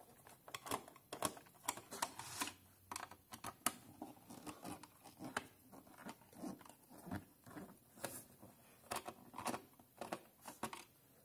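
Small screwdriver working tiny screws out of a white plastic router case: irregular clicks, scrapes and taps of metal on screw heads and plastic, along with hand handling of the case.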